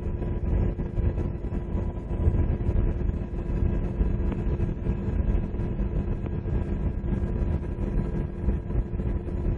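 Twin-turbine UH-60 Black Hawk helicopter running in flight, a steady low drone of engines and rotor from inside the cabin with a faint constant whine on top.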